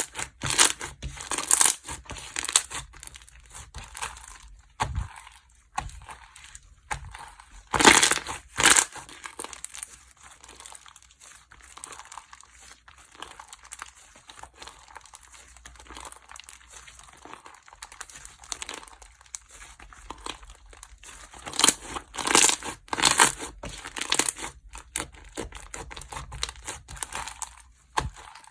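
Slime being pressed, stretched and squished by hand, giving irregular clusters of small clicks and crackling pops. The busiest, loudest stretches come about eight seconds in and again about twenty-one to twenty-five seconds in, with softer handling between.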